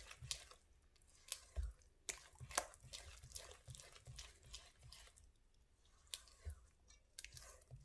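Thick banana bread batter being stirred in a mixing bowl: faint, irregular wet squelches and scrapes.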